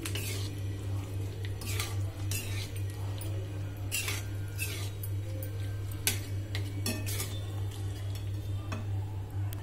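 Metal spoon scraping and clinking against a metal wok as sticky jaggery-coated raw-mango pieces are stirred. The strokes come irregularly, about one every second or two, over a steady low hum.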